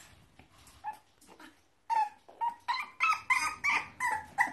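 Bulldog giving one short high-pitched yip, then from about two seconds in a quick run of about a dozen more, roughly four a second.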